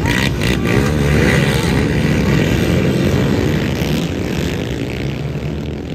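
A pack of racing ATVs (quads) revving hard through the first turn just after the start, many engines running together into one dense drone. It fades slightly near the end as the pack pulls away.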